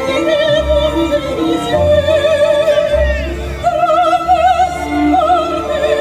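Soprano singing an operatic melody with wide vibrato on long held notes, over orchestral accompaniment with deep bass notes.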